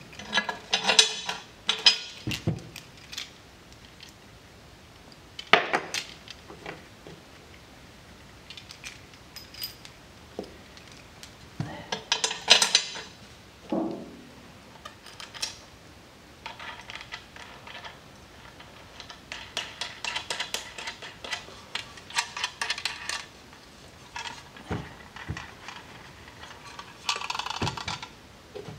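Small metal parts and hand tools clinking and clattering against each other and the bench while a fuel cell fill plate and its fittings are handled, in scattered clusters of clinks with quieter gaps between.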